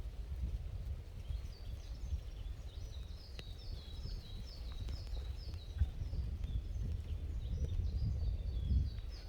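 Small birds singing: series of short, high, downward-sliding notes repeated two or three times a second, over a low rumble of wind.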